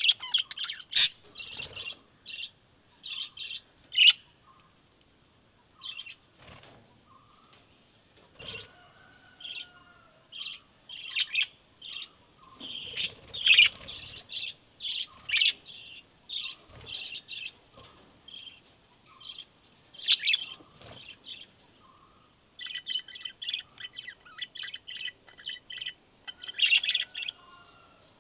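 Pet lovebirds chirping: short, sharp, high-pitched chirps in irregular bursts, with a faster run of rapid chatter about three-quarters of the way through.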